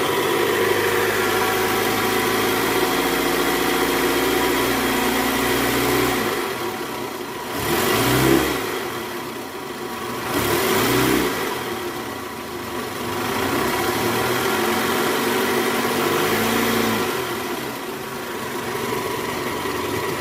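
Toyota Camry 2AZ-FE 2.4-litre four-cylinder engine idling in gear and revved briefly about three times to around 1200 rpm. It runs on a new drive-belt tensioner, without the growl that the worn tensioner's weak spring had caused.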